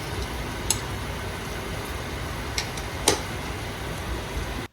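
Onion and spice masala sizzling steadily in oil in an Instant Pot on sauté, with a few light clicks of a spoon against the pot.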